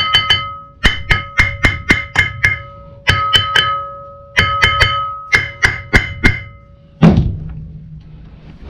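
Sharp metal-on-metal strikes in quick groups of three to six, with the struck metal part ringing on between blows. A single heavy thud about seven seconds in.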